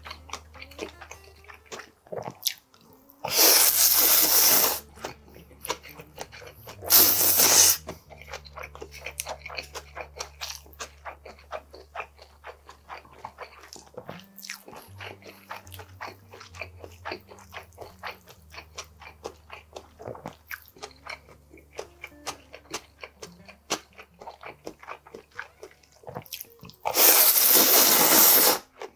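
Close-miked eating of cold hiyashi chuka noodles: three loud slurps of the noodles, about three seconds in, about seven seconds in and near the end, with chewing and wet mouth clicks in between.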